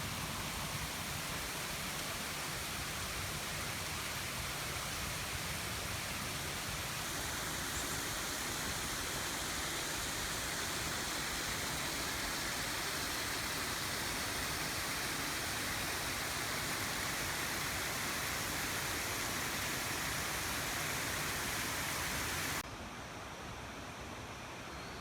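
Waterfall's steady rushing of falling water. About 22 seconds in it turns suddenly quieter and duller.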